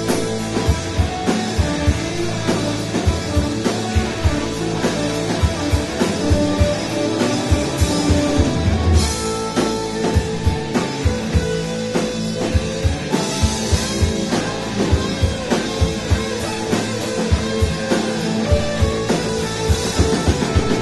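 A live rock band playing an instrumental passage: electric guitars ringing over a steady drum-kit beat.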